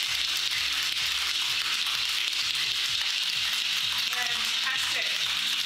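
Ice rattling inside a metal Boston cocktail shaker, shaken hard and steadily, as a continuous dense clatter.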